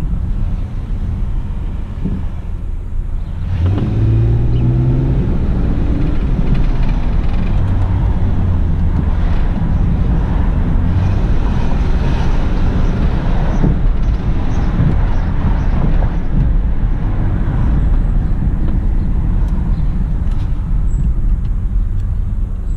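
2003 Ford Escape being driven, running on its newly replaced fuel pump: steady loud engine and road noise, with the engine pitch rising about three and a half seconds in as it accelerates.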